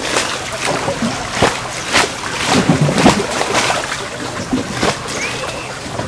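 Water lapping and splashing in irregular slaps at the edge of a reservoir.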